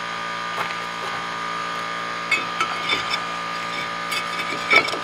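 Metal clinks and knocks as a brake rotor is fitted over the wheel hub's studs, thickest in the second half, over a steady mechanical hum.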